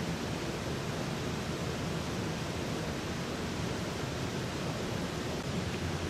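Steady, even rushing noise with no distinct bird calls or other events.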